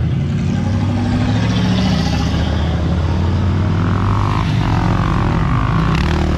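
Several motorbike engines of street wheelie riders, really loud, revving up and down as they pass on the road.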